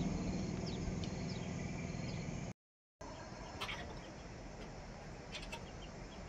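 Outdoor ambience: a low hum fading away, with faint short bird chirps scattered through it. The sound cuts out completely for about half a second a little before halfway, then the chirping ambience resumes.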